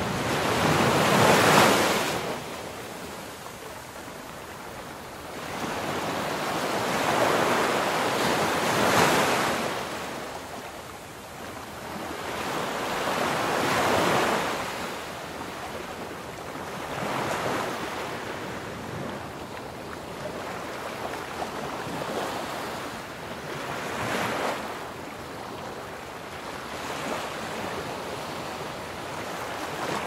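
Ocean waves: surf washing in and drawing back, swelling into a surge every few seconds over a steady hiss. The loudest surge comes about a second in.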